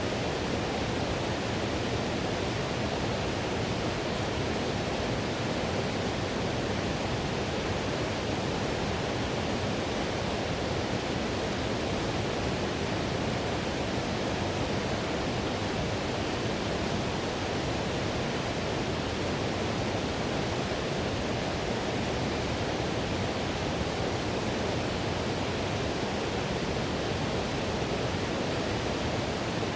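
Whitewater river rushing steadily: a constant, even wash of water noise, fullest low in pitch, with no breaks or separate events.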